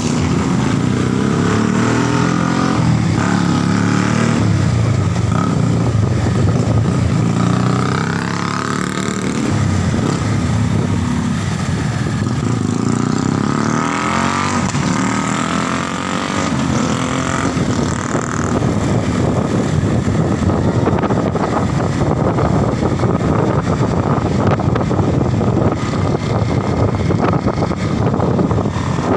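Small motorcycle engine running under way on the road, its pitch rising and falling several times as the throttle opens and closes, over a steady rush of wind and road noise.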